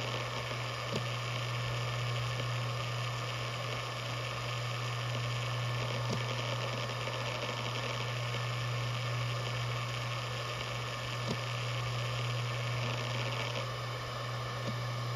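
Maxtor DiamondMax 17 7200 RPM hard drive spinning with a steady low buzz, normal for this model, over a hiss, with a few faint ticks of head activity.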